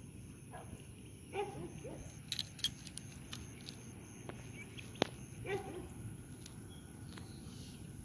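A dog barking twice, single barks about four seconds apart, with a few sharp clicks in between.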